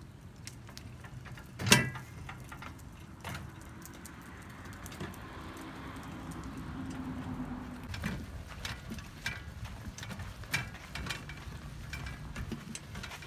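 Caboose hitch cart loaded with a cooler being pulled along, its metal frame and load rattling and clanking as the wheels roll, with one sharp clank about two seconds in and a run of knocks in the second half.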